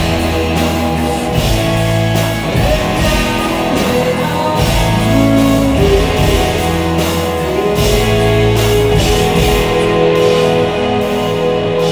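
Live rock band playing at full volume: electric guitars over held bass notes that change every second or two, with drums and cymbals keeping time.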